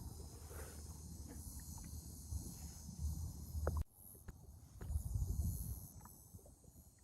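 Faint low rumble with scattered small clicks and ticks, dropping away abruptly a little before halfway.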